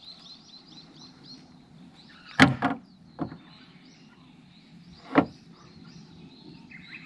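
A few sharp knocks on an aluminium boat while a hooked fish is played and the landing net is worked at the side of the boat. There is one loud knock with a quick second one after it, a lighter one, and another loud knock a few seconds later. Faint bird chirps run underneath.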